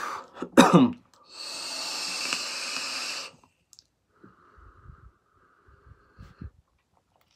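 A person taking a hit of smoke: a steady, hissing inhale of about two seconds, then a softer, longer exhale of the smoke with a few faint low knocks.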